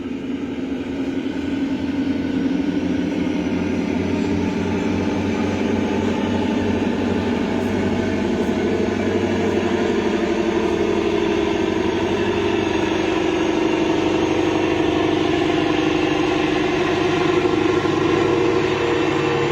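Engines of the passenger ship KM Barcelona 3A running steadily, a dense low drone that swells over the first couple of seconds and then holds.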